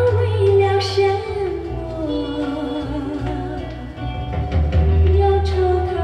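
Song with singing and a steady bass line, played from a vinyl record on a turntable.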